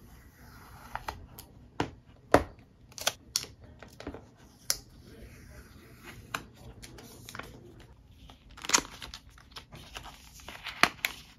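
Handling sounds from fitting a screen protector to a tablet: plastic film and paper tabs crinkling and peeling, with about a dozen sharp clicks and taps scattered irregularly.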